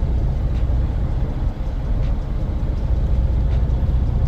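Steady low rumble of a semi-truck's diesel engine and road noise heard inside the cab, with a few faint irregular ticks.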